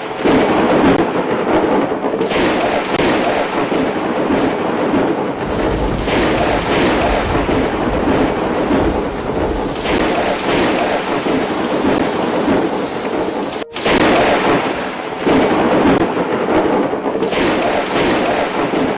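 Torrential storm rain: a loud, dense rush that swells and eases every few seconds, with a sudden brief break about two-thirds of the way through.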